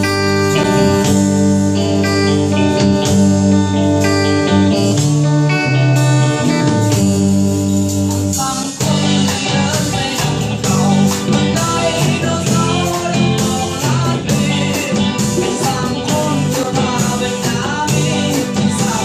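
A rock band of drums, electric guitars, bass and keyboard playing a song with a singer. For the first half it holds long sustained chords, then about halfway through it drops into a busier beat.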